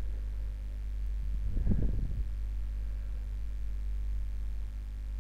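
Steady low hum, with a brief low rumble about two seconds in.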